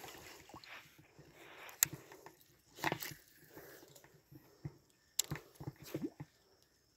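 Short, sharp pops and knocks, a second or so apart, from a Yara Shotgun 90 popper lure being jerked across the water surface on the retrieve.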